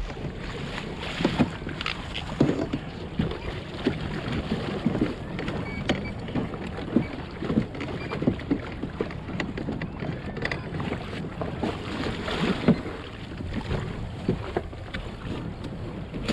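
Water slapping and sloshing against a kayak hull, with wind buffeting the microphone and irregular small knocks throughout.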